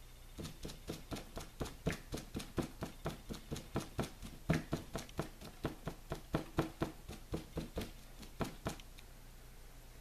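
Crumpled plastic wrap loaded with paint dabbed again and again onto paper: a quick run of light taps, about four a second, that stops about nine seconds in.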